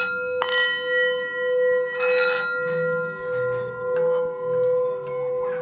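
Brass singing bowl played with a wooden mallet: a strike about half a second in, then the mallet working the rim keeps a steady ringing tone going that swells and dips about once a second.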